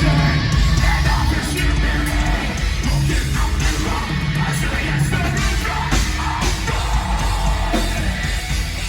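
Live heavy metal band playing at full volume: distorted guitars, bass and drums under a shouted, screamed vocal.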